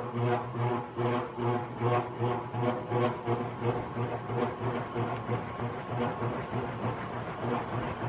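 Sanyo 56-inch industrial metal ceiling fan running on high, a steady motor hum with a rhythmic pulsing about twice a second that settles into a steadier hum over the last few seconds. The fan is old and rusty, and it stays noisy even with freshly oiled bearings.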